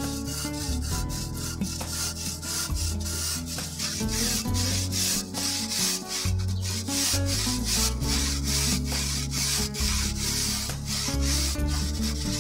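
Handsaw cutting through a soft insulating firebrick with quick, even back-and-forth rasping strokes. Background music plays underneath.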